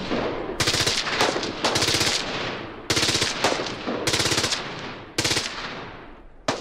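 AR-pattern rifle firing on full automatic: about five short bursts of rapid shots, each trailing off in an echo.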